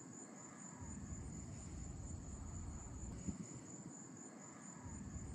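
Insects chirping, likely crickets, in a high, steady, evenly pulsing trill, over a low rumble of wind.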